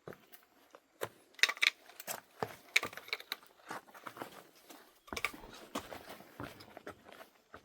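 A hiker's footsteps on an overgrown trail: irregular crunches, clicks and scrapes, with rustling as he brushes through the brush.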